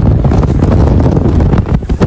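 Strong gusting wind buffeting a phone microphone, a loud low rumbling roar with irregular flutter.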